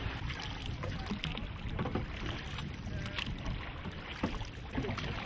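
Water rushing and splashing against a large paddled war canoe, with irregular paddle strokes and wind rumbling on the microphone.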